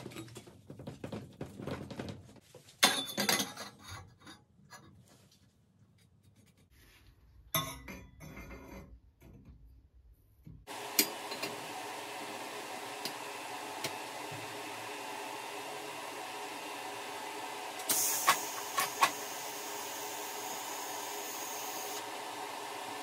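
Stainless steel exhaust tubes being handled and fitted into a metal manifold jig: metal rubbing and light clinks and knocks. About eleven seconds in, a steady machine hum starts and runs on, with a louder high hiss and a few sharp clicks for several seconds near the end.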